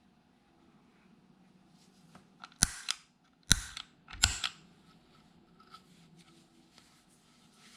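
Handling noises from unboxing a small effects pedal: three sharp clacks in quick succession a few seconds in, each followed by a smaller one, amid faint rustling.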